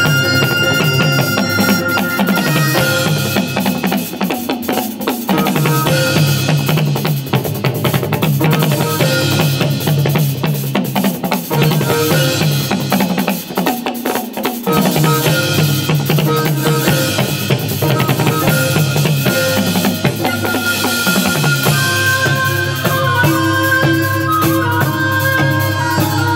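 Korean traditional ensemble music driven by fast, continuous drumming on a set of Korean barrel drums and a drum kit with snare and cymbals. A taepyeongso (Korean shawm) melody sounds over the drums at the start, and a melody line, with a haegeum fiddle among the players, comes back in near the end.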